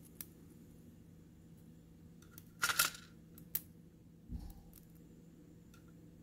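A few light clicks and taps of small metal lock parts and tweezers being handled on a plastic pin tray, the loudest a quick pair of clicks a little under three seconds in, followed by a soft low thump, over a faint steady hum.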